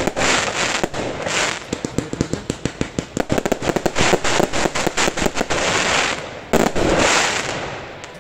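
Fireworks going off in a rapid volley of bangs and crackles, several a second, with a final loud burst about six and a half seconds in, then dying away: the closing barrage of the display.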